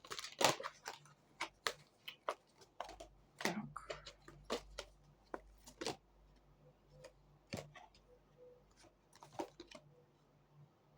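Tarot cards being handled, shuffled and laid down: a string of irregular sharp taps and soft clicks, busier in the first half and thinning out towards the end.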